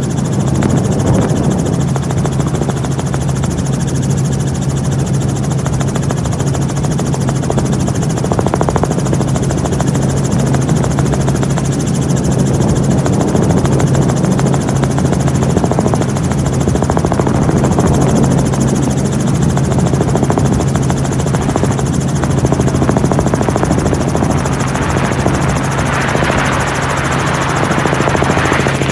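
Helicopter running steadily overhead: a loud, even drone of rotor and engine with a constant low hum.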